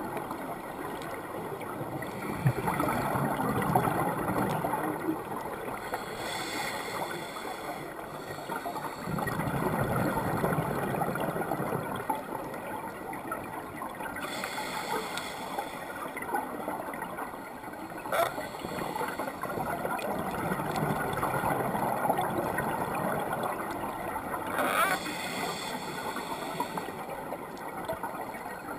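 Scuba diver's regulator breathing heard underwater through a camera housing: muffled, bubbly exhalations that swell up and die away every several seconds, with a couple of short clicks.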